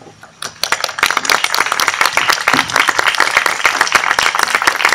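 Audience applauding: many hands clapping, starting about half a second in and then going on steadily.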